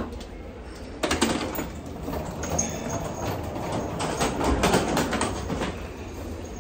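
Rolling suitcase wheels running over the floor, starting about a second in, with scattered clicks and knocks.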